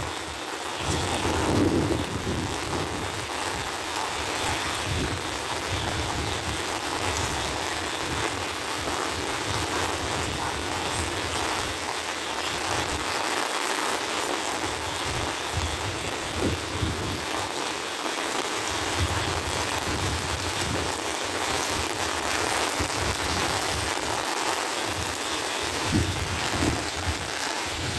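Steady rain falling on a wet road, a constant hiss, with gusts of wind buffeting the microphone now and then.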